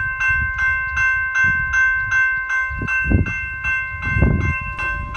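Railway level-crossing warning bell ringing rapidly and evenly, about two and a half strokes a second, signalling an approaching train. Under it runs a low rumble that swells twice, around three and four seconds in.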